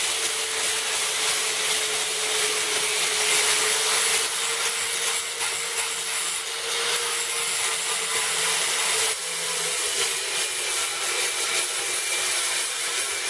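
Electric angle grinder grinding down old welds on a steel disc-harrow hitch pin to prepare them for re-welding: a steady motor whine over a harsh grinding hiss. The whine drops slightly in pitch about nine seconds in.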